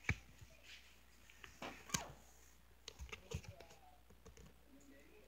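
A few sharp knocks and clicks: the loudest right at the start and about two seconds in, then a few fainter ones around three seconds.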